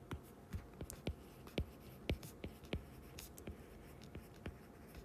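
Stylus tip tapping and clicking against a tablet's glass screen while handwriting: a faint, irregular run of sharp ticks, several a second.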